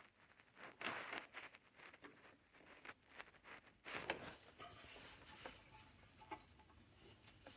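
Faint, scattered clicks and scrapes of hands and tools working on engine parts, with the sharpest clicks about one second in and about four seconds in.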